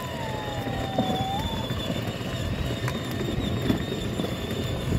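Battery-powered ride-on toy car driving over interlocking paving stones: its hard plastic wheels rumble and rattle, with a thin steady whine from the electric drive.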